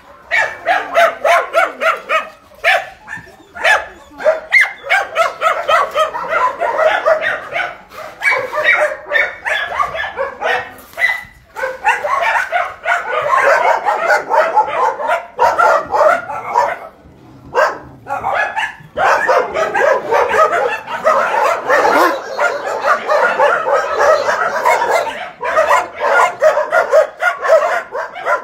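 Many kennelled dogs barking at once, a dense, overlapping chorus with a couple of short lulls.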